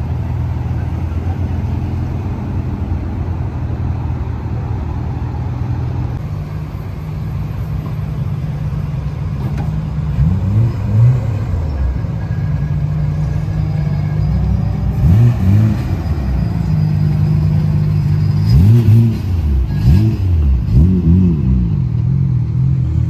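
Car engines idling: first a Nissan 300ZX, then a Nissan Skyline GT-R's RB26 twin-turbo straight-six. From about ten seconds in, the GT-R gives quick throttle blips, the revs jumping up and dropping back, in clusters around the middle and near the end.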